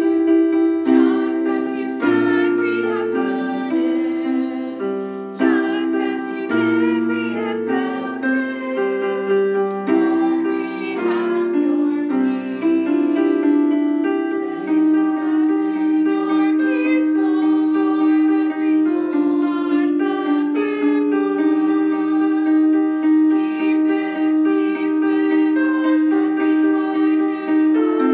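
Keyboard playing a slow hymn tune in sustained chords.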